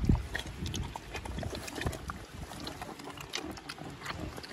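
Piglets drinking whey from a trough, a run of short wet slurping clicks mixed with low grunts; the loudest grunt comes right at the start.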